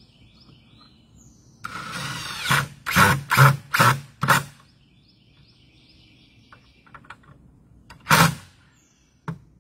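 Cordless drill driving a screw into cedar boards. It makes one run of about a second, then four short trigger bursts in quick succession, and one more short burst near the end.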